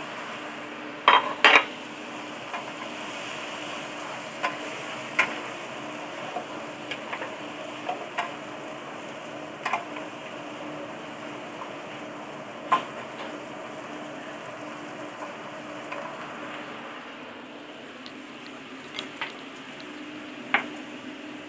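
Vegetables and squid sizzling in a wok while a wooden spatula stirs them, with sharp knocks of the spatula against the wok every few seconds, the loudest about a second in. The sizzle eases a little near the end.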